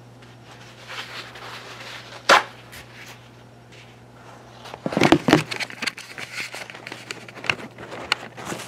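Rustling and crinkling handling noise with scattered sharp clicks, loudest about five seconds in, over a low steady hum.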